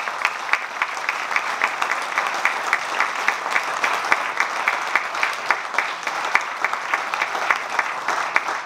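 Audience applauding in a hall, with one person's sharper claps standing out close by at a steady rate of about four a second.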